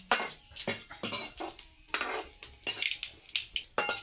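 Steel ladle scraping and stirring in a steel kadai with quick repeated strokes, about two or three a second, turning a tempering of cumin, coriander seed, mustard and chilli in oil.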